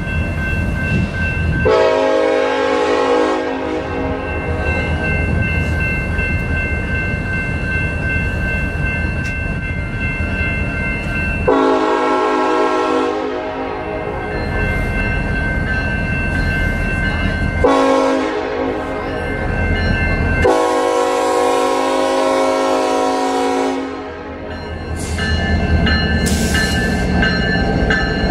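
Horn of Union Pacific 1943, an EMD SD70ACe diesel locomotive, blowing three long blasts as the train approaches along a street. Near the end the locomotive's diesel engine rumbles louder as it draws close.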